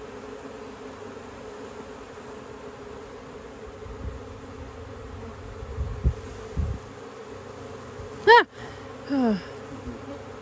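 Swarm of honeybees buzzing steadily around an open hive as they are shaken in from branches. There are a couple of low thumps about six seconds in, and near the end two loud, brief buzzes that drop in pitch as bees fly close past.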